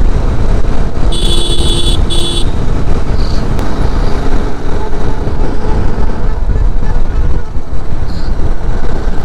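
Steady wind and engine noise of a motorcycle ridden at speed on a highway. About a second in, a vehicle horn toots twice, a longer blast then a short one.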